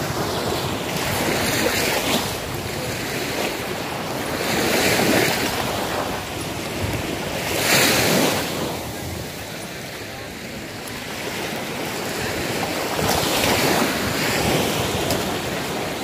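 Small sea waves washing up on a sandy beach, the surf noise swelling and fading several times, with wind buffeting the microphone.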